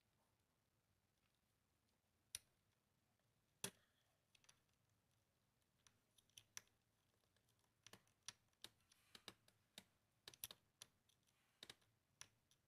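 Faint, irregular clicks and taps of hard plastic toy parts being handled and fitted onto a Tomica car wash playset's plastic base. The clicks are sparse at first and come in quick clusters in the second half.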